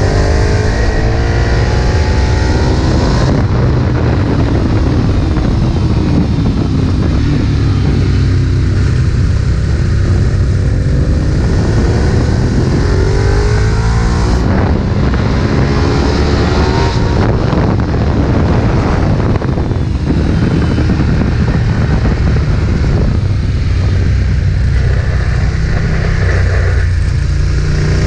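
Ducati 1098's V-twin engine running hard onboard on a race track. Its pitch climbs as it accelerates up through the revs, then falls as it slows, several times over.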